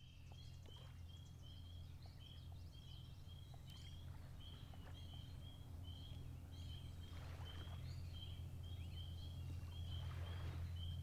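Faint outdoor marsh ambience: short high-pitched chirping calls repeating about two or three times a second over a steady low rumble, with two brief rushes of noise partway through.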